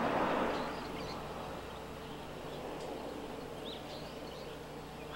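Quiet outdoor ambience: a steady faint background hum with a few short, faint bird chirps, the clearest about three and a half seconds in.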